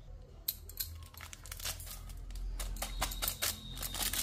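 Foil Maggi masala sachet crinkling in the fingers while it is squeezed and shaken to empty the spice powder out. There are scattered crackles at first, growing denser and louder after about two and a half seconds.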